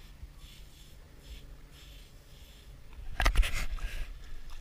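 Faint scratching of a stick drawn through dry beach sand, soft strokes about twice a second. About three seconds in there is a sudden loud rustling burst on the microphone, lasting about half a second.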